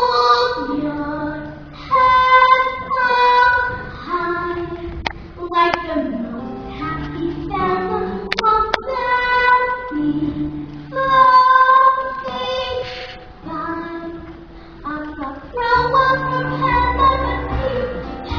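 A child singing a show tune in phrases over an instrumental accompaniment with a steady bass line.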